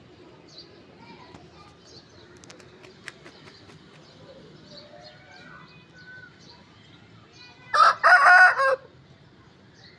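Young Aseel cockerel crowing once near the end, a short crow of about a second. Faint chirps and clucks come before it.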